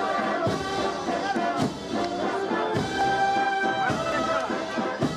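Brass band music playing long held chords, with trombones and trumpets.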